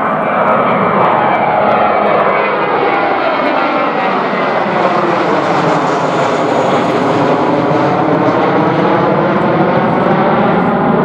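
Twin-engine jet airliner of the Airbus A320 family climbing out just after takeoff, its engines at climb power. It is a loud, steady jet roar with a slowly sweeping, phasing sound as the aircraft passes overhead and moves away.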